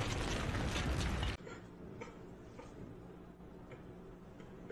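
Rumbling explosion sound effect from an anime fight scene, cutting off abruptly about a second in, followed by a faint hush with a few soft ticks.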